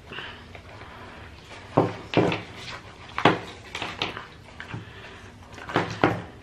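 A drawstring bag being pulled open and rummaged through by hand: rustling with several sharp crinkles and knocks as the items inside are handled, the loudest about two and three seconds in.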